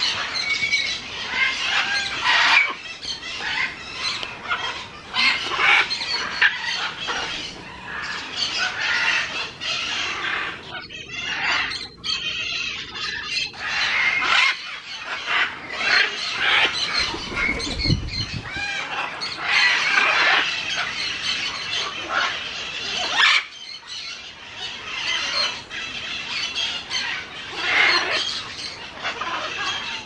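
Blue-and-gold macaws bathing in a shallow pool under a trickling waterfall: water splashing and spattering as a macaw flaps and shakes its wings in the water, with squawks.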